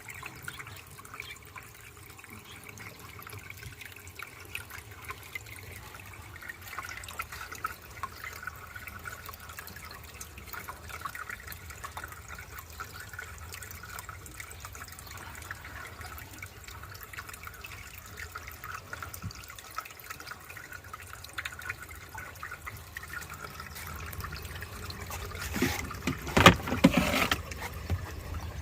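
Water trickling steadily in a home-made refrigerator aquarium, with a few louder sudden sounds near the end.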